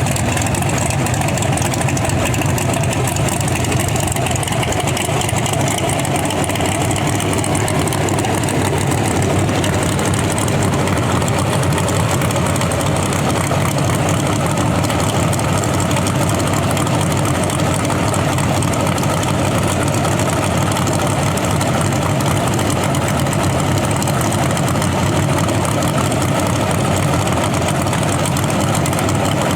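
Drag car's V8 engine idling steadily and loudly, with no revving.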